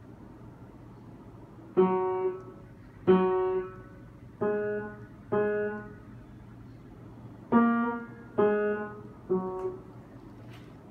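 Yamaha piano played slowly, one note at a time: seven struck notes with pauses between, each left to ring and fade, starting after nearly two seconds of quiet.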